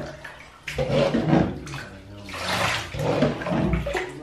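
Bathwater splashing and pouring in a bathtub as a dachshund puppy is washed, coming in irregular bursts.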